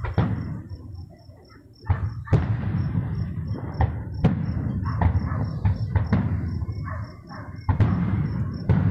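Aerial fireworks going off: a string of sharp bangs and booms, each trailing into a low rolling rumble, coming every second or so with a short lull about a second in. Crickets chirp steadily and high behind them.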